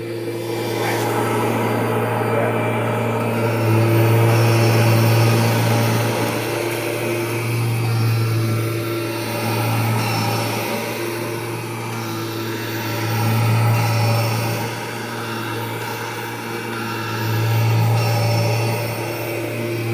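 Kirby Generation 3 upright vacuum cleaner running, a steady motor drone that grows louder and eases off again every few seconds.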